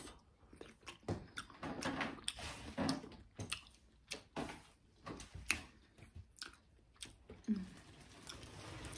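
A person chewing a mouthful of lo mein noodles close to the microphone, with irregular wet mouth clicks throughout.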